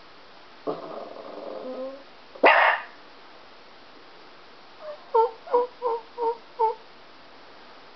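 Dogs barking: a drawn-out whine about a second in, then a single loud bark, then a quick run of five short yapping barks near the end.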